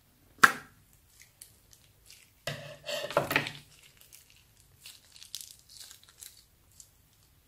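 Scissors snipping through a plastic bag filled with slime with a sharp cut about half a second in, then slime squelching out of the opened bag for about a second. The emptied plastic bag then crinkles softly in the fingers with small scattered crackles.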